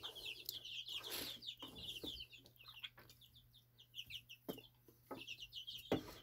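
A brood of baby chicks peeping: many quick, high-pitched cheeps overlapping without a break, with a few faint knocks.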